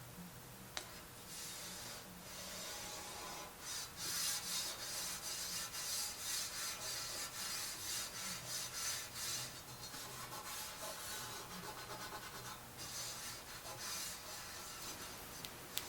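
Irregular hand rubbing strokes on a surface, like sanding or scraping, with a sharp click about a second in and another near the end.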